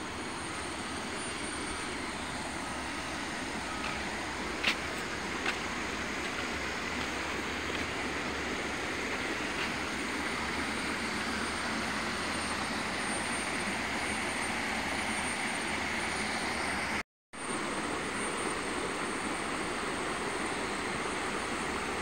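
Steady rush of stream water running over rocks, with two short clicks about five seconds in; the sound drops out for an instant about three quarters of the way through.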